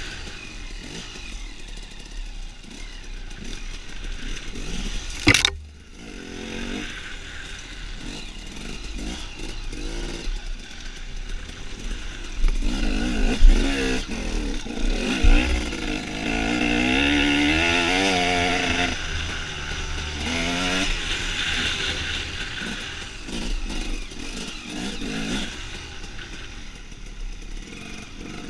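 Enduro dirt bike engine heard from the rider's own bike, running under changing throttle; in the middle it revs up repeatedly in rising glides as the bike climbs and accelerates. A sharp knock sounds about five seconds in, and the sound drops briefly after it.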